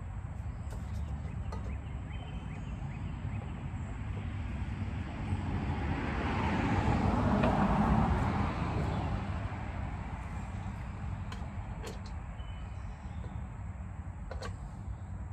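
A vehicle passing by, its noise swelling for a few seconds and fading away over a steady low rumble, with a few faint clicks.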